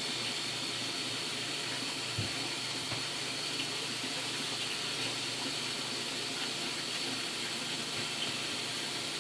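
Steady hiss of background noise with a faint high tone running through it, and a couple of faint soft knocks about two and three seconds in.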